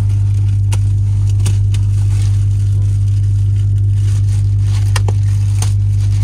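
Plastic wrapping on a mattress crinkling and crackling in short bursts as it is handled, over a loud steady low hum.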